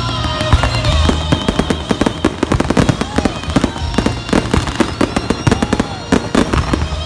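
Fireworks display: a rapid, continuous string of bangs from many shells bursting at once, with music playing underneath.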